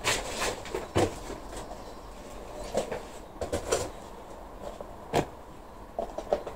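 Gloved hands handling small plastic pots and cups on a potting bench while potting up seedlings: scattered light knocks and clicks with rustling, a quick cluster of them about three and a half seconds in.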